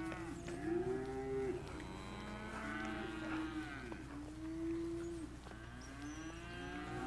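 Several young cattle mooing, long drawn-out calls that overlap one another, one call starting as another fades.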